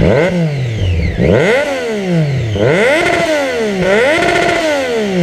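Triumph Daytona 675 three-cylinder engine revved four times while standing: each blip climbs sharply and falls back, with the middle two held briefly at the top. It is fitted with an Arrow exhaust.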